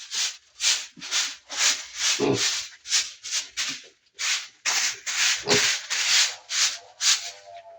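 Piglets eating, with rhythmic, noisy chomping and snuffling about two or three times a second and a few deeper sounds mixed in.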